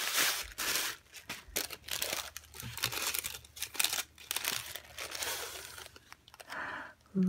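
Tissue paper crinkling and rustling as a wrapped package is unfolded by hand, in a run of irregular crackles that is loudest in the first second and thins out towards the end.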